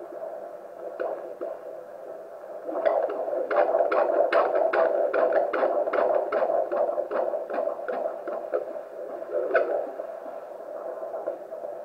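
Fetal Doppler monitor at a 25-week antenatal check: a steady whooshing hum with faint, slow pulses for the first few seconds, then the unborn baby's heartbeat, fast and regular at several strokes a second, from about three seconds in. The beat drops away near nine seconds and comes back near the end.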